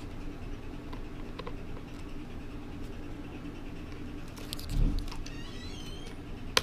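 Small clicks and a soft thump as a wiring plug is handled and pushed onto a 3D printer's main board, the thump about five seconds in, over a steady low hum.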